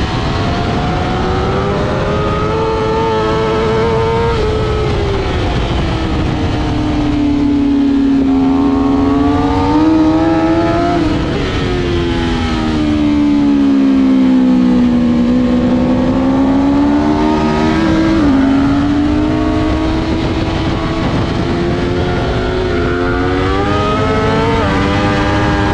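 BMW S1000RR's inline-four engine at racing speed, heard from on board. The revs fall in two long dips and climb back up, with a brief drop as a gear is changed near the end, over a rush of wind noise.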